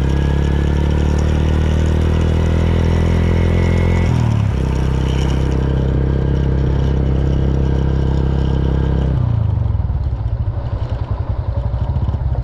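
Motorcycle engine running at steady revs while being ridden. The note dips briefly about four seconds in, and about nine seconds in the revs drop and the running turns uneven.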